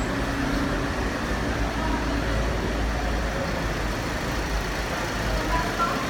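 Steady low rumble of cars idling in a queue, with no sudden events.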